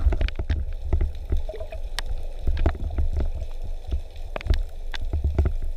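Underwater sound through an action camera's housing just below the surface: a steady low rumble of moving water, broken by many irregular sharp clicks and crackles.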